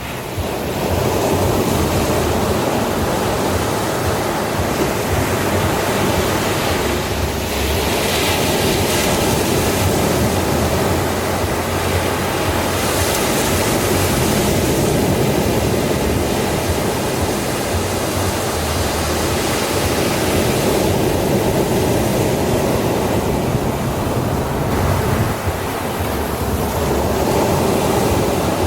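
Ocean surf washing onto a sandy beach, a steady rush of water with the hiss swelling each time a wave breaks.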